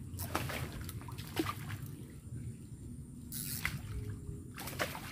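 A hooked patin (pangasius catfish) thrashing at the surface of a pond as it is pulled in to the bank: a few separate splashes and slaps of water, the biggest about three and a half seconds in.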